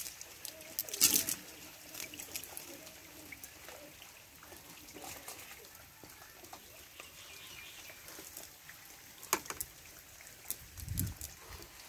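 Water trickling and splashing during cast-net fishing, with scattered sharp splashes, the strongest about a second in and another near the end.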